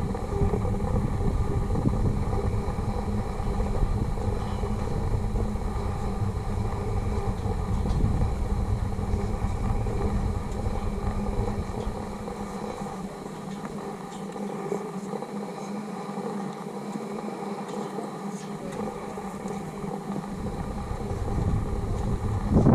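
Wind rumbling on the microphone in gusts, heavy through the first half, easing off for several seconds and picking up again near the end, over a steady faint hum.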